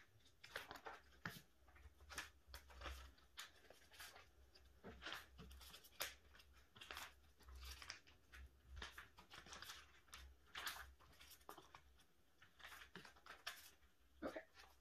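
Faint, irregular rustling and crinkling of clear plastic card sleeves as photocards are slid into their pockets and the sleeve pages are handled, over a low steady hum.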